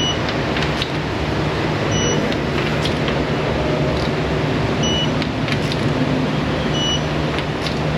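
Steady machine running noise with a low hum, with faint scattered ticks over it.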